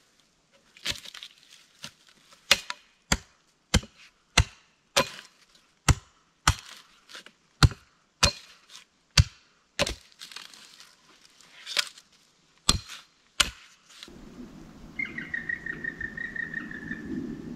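Wood being chopped with an axe: about sixteen sharp strikes, one every half second to a second. About fourteen seconds in the chopping stops, and a bird gives a trilling call over a low wind rumble.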